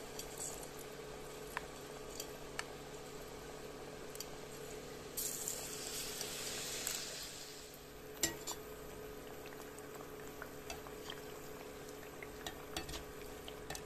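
Battered potato pieces deep-frying in hot oil in a kadai: a steady low sizzle that swells into a louder hiss for a couple of seconds about five seconds in, as another spoonful of batter-coated potato goes into the oil. Light metal clicks of a spoon against the pan come and go, the sharpest just after the hiss fades.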